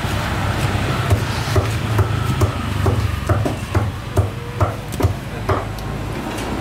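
A large knife chopping a trevally fillet into pieces, each stroke knocking on a thick wooden chopping block. It is a string of sharp, uneven knocks that come faster in the middle.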